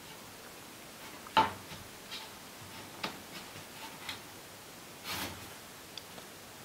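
Cat playing at a bedroom door, its paws and claws tapping and scratching on the door and wooden floor: scattered light taps, a sharp knock about a second and a half in, and a short scuffle about five seconds in.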